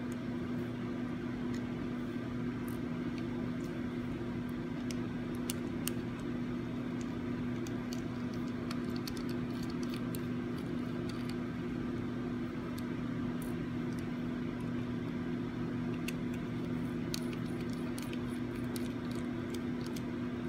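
Steady low background hum with a held tone, over which come scattered faint small clicks of a small Phillips screwdriver and tiny screws being worked out of a dash camera's circuit board.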